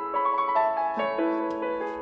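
Background piano music, a gentle melody played note by note.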